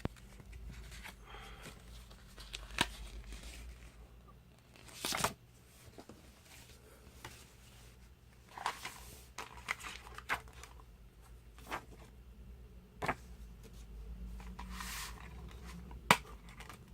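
A Blu-ray steelbook case and its paper digital-copy insert being handled: scattered brief paper rustles and sharp clicks, the loudest click near the end.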